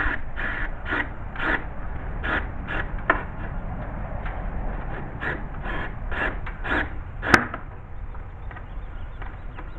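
Crows cawing in repeated short bursts, in clusters, with one sharp knock about seven seconds in.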